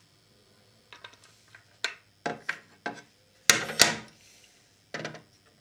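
Metal and plastic parts of a small TV's mounting stand clicking and knocking as they are handled and fitted together, the two loudest knocks close together about three and a half seconds in.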